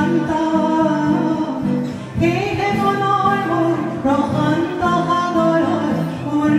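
A woman singing into a microphone over acoustic guitar accompaniment, mostly in long held notes, with a brief pause about two seconds in before the next phrase.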